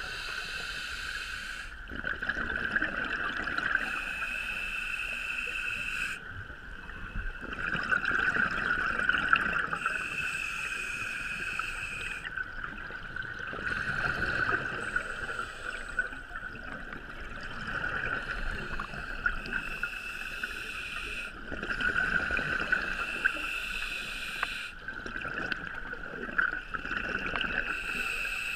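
Underwater sound of a scuba diver breathing through a regulator: exhaled bubbles gurgling in swells that rise and fall every few seconds over a steady hiss.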